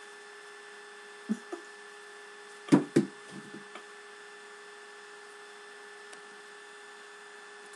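Steady electrical hum with faint hiss. A short knock comes about a second in, and two louder knocks about halfway through, like something being handled or bumped near the microphone.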